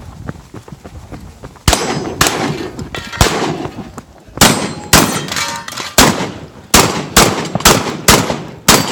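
Shotgun fired in a string of about a dozen shots, starting nearly two seconds in and quickening to about two a second, with metallic clangs and ringing from steel targets being hit.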